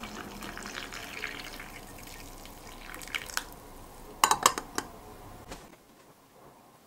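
Water poured from a glass pitcher into a glass tea cup, splashing for about three seconds. About four seconds in, a quick cluster of sharp glass clinks as a glass lid is set on the cup.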